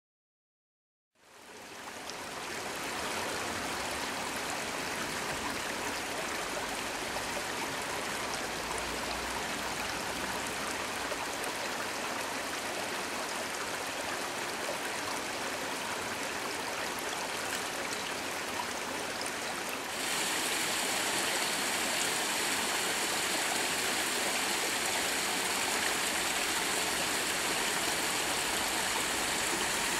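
Shallow woodland stream running over rocks: a steady rush of water that fades in about a second in and grows louder and sharper about twenty seconds in.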